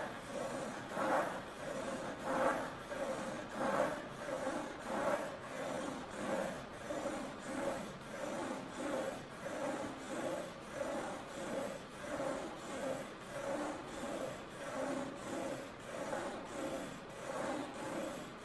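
Pen scratching across paper and the wooden linkage arms of a turntable-driven drawing machine rubbing at their joints, in a steady rhythm of swells about once or twice a second as the arms sweep back and forth.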